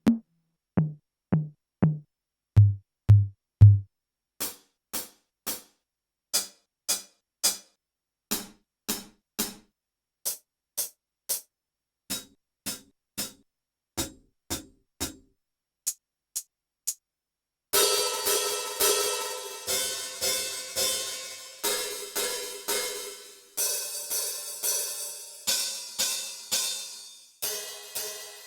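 Drum voices from a SoundKing SD20AM electronic drum kit's module, heard clean with silence between strokes. First come a few pitched tom hits, the lower ones about three seconds in. Then a long run of short, sharp hits about two a second, and from about eighteen seconds in, cymbal crashes ringing over one another.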